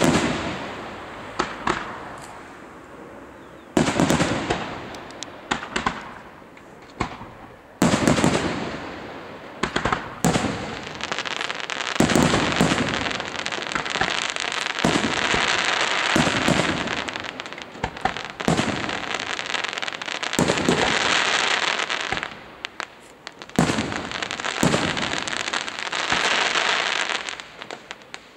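Professional fireworks display: aerial shells bursting with sharp bangs every few seconds. Through the middle stretch there is a near-continuous din of overlapping bursts and crackle, then separate bangs again near the end.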